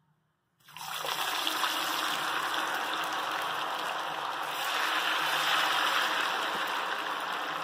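Hot oil sizzling steadily as seasoned potato sticks deep-fry in it, starting suddenly about half a second in when they are dropped into the pan.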